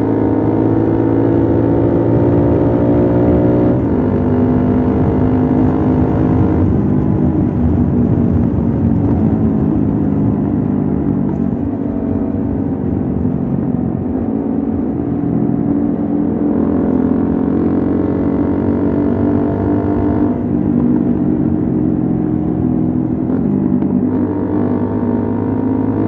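Keeway Cafe Racer 152's single-cylinder engine running through an Akrapovic full exhaust with dB killer, heard from the rider's seat while riding. The revs climb slowly and fall back sharply several times, about 4 and 7 seconds in and again about 20 seconds in.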